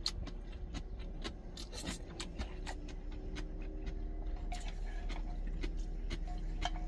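Wooden chopsticks stirring noodles in a stainless steel pot, with many small irregular clicks and scrapes against the metal, alongside chewing. A steady low hum sits underneath.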